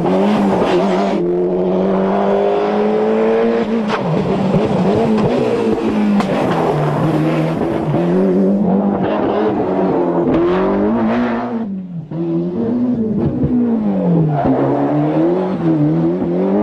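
Ford Escort RS Cosworth rally cars' turbocharged 2-litre four-cylinder engines at full throttle, several cars in turn. Revs climb steadily and drop sharply at a gear change, then swing down and up again and again as the drivers lift and get back on the power through the corners.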